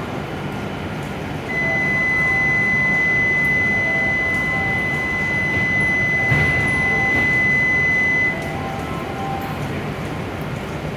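Platform departure bell for a Shinkansen: one steady, high electronic tone starting about a second and a half in and cutting off sharply about seven seconds later, signalling that the stopped train is about to close its doors and leave. A low steady hum runs underneath.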